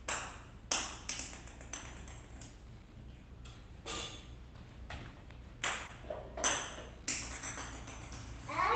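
Irregular sharp taps and knocks of hard objects, about a dozen spread over several seconds, each with a short ringing ping.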